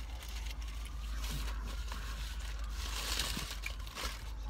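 A paper sandwich wrapper being handled and crinkling, loudest about three seconds in, over a steady low hum.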